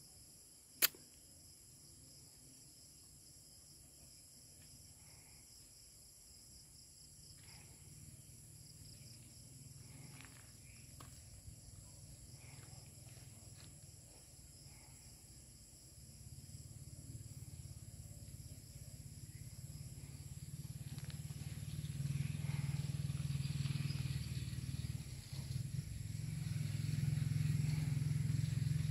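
Night-time outdoor ambience of steady, high-pitched insect chirring. A single sharp click comes about a second in, and a low rumble grows steadily louder through the second half.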